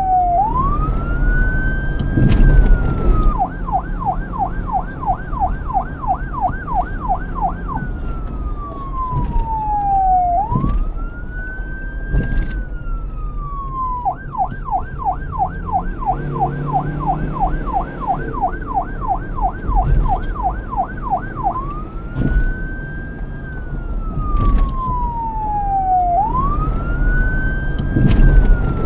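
Police car electronic siren switching between a slow wail, which rises and then falls over a few seconds, and a fast yelp of about four sweeps a second, over a low rumble.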